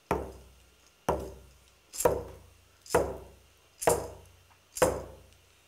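Single-headed rawhide hand drum struck with a beater in a slow, steady beat, about one stroke a second: six strokes in all, each a deep boom that dies away before the next.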